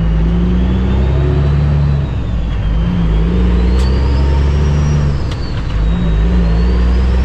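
A Cummins ISX diesel in a Kenworth W900L semi truck, heard from inside the cab, pulling under load as the truck accelerates. The engine pitch climbs and drops twice as the driver shifts up through the gears, with a high whistle rising and falling along with it.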